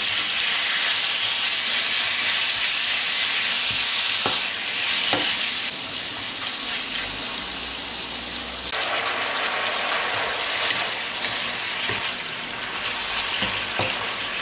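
Diced raw lamb sizzling in hot oil in a non-stick wok over high heat as it is seared. A wooden spatula stirs it, with a few short knocks and scrapes against the pan.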